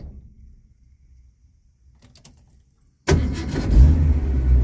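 The heat-soaked V8 of a 1982 Ford Mustang GT restarts hot. Near silence after shut-off, broken by a few faint clicks, ends about three seconds in when the engine fires almost at once, flares up briefly and settles into a steady idle. It starts easily with no hard-start trouble: "like brand new."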